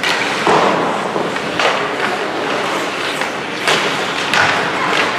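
Ice hockey play on a rink: skate blades scraping and carving on the ice, with several sharp knocks of sticks and puck against each other and the boards over a steady hiss.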